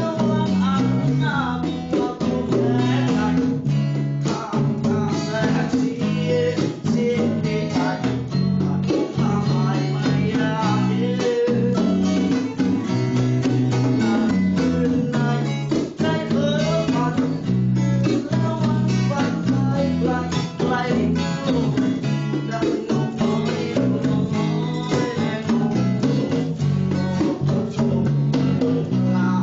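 Music: a guitar plays a song over a stepping bass line and a steady beat, with a voice singing.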